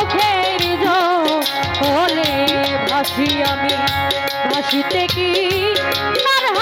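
A woman singing a Bengali bicched folk song into a microphone, her melody wavering and ornamented. She is backed by steady held instrumental notes and regular drum beats.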